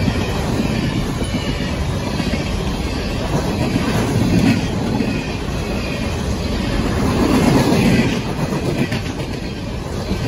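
Empty coal cars of a CSX freight train rolling past close by: a steady rumble and rattle of steel wheels on the rail with clickety-clack as the wheel sets cross the joints. The rumble swells twice, about four seconds in and again around seven to eight seconds in.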